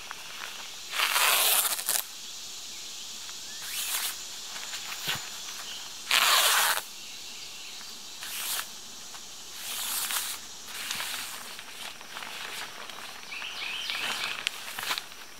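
Black tape being pulled off its roll in loud rips about a second long, the loudest two coming about a second in and about six seconds in. Between the rips, the plastic tarp rustles and crinkles as it is pressed down and then lifted.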